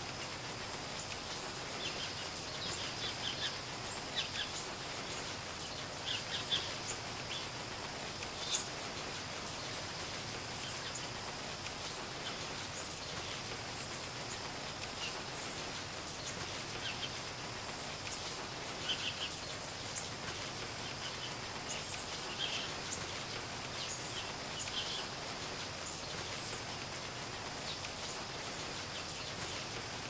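Steady rain falling, an even hiss, with scattered short high bird chirps, most of them in the first ten seconds and again a little past the middle. A faint steady high tone runs underneath.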